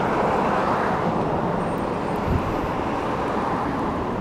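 Steady road traffic noise: an even, constant rush with no distinct engine note or impacts.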